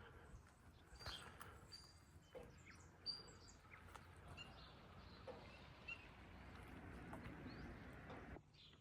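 Near silence: faint outdoor background noise with a few small bird chirps. The background cuts off suddenly near the end.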